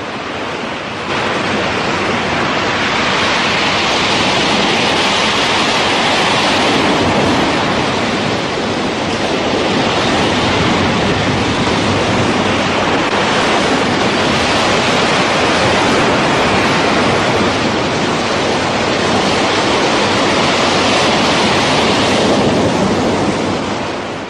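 Ocean surf: a loud, steady rush of breaking waves and churning water, easing off near the end.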